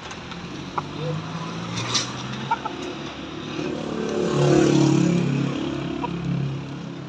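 A motor vehicle's engine running, growing louder to a peak about four and a half seconds in and then fading, as if passing by.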